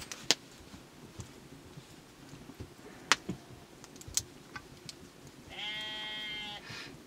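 A few sharp clicks and snaps while mushrooms are torn apart by hand. Near the end comes a single steady bleat, about a second long.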